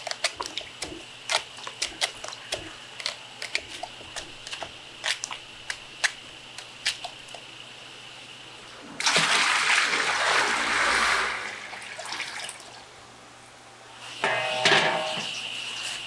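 A kitchen knife cutting through raw peeled sweet potato, giving sharp irregular clicks about two or three times a second. About nine seconds in, water sloshes and splashes loudly in a plastic basin for a few seconds. Near the end a metal steamer pot is handled with a short clatter.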